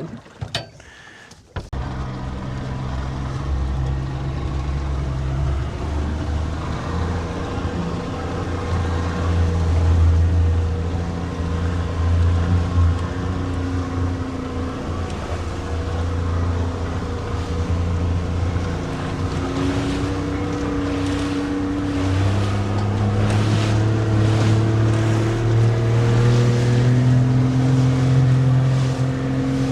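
Boat engine running steadily, coming in suddenly about a second and a half in, with its pitch stepping up and down over the last third.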